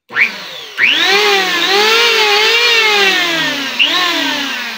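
Electric hand planer (700-watt Powerhouse) switched on: a short burst, then the motor whines up to speed about a second in. Its pitch dips and rises as it is pushed over a board, while the blades barely bite into the wood. Near the end it revs briefly, then winds down as it is switched off.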